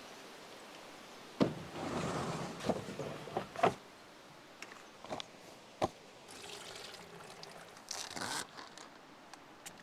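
Water pouring and trickling into a collapsible plastic tub, mixed with a few sharp knocks of plastic gear being set down and a brief crinkle of a plastic bag of frozen chicken breasts being opened near the end.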